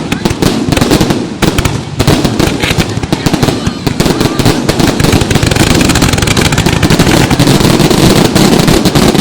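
Fireworks going off in a loud, continuous barrage of bangs and crackling, growing denser in the second half.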